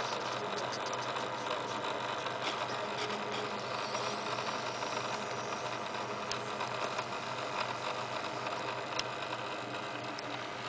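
A steady mechanical hum and rattle from a small motor, with a few faint clicks.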